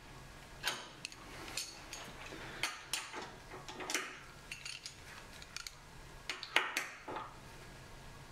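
Irregular metal clinks and scrapes of a spanner wrench being fitted to and worked on the steering stem adjusting nut, tightening the taper-roller steering-head bearings.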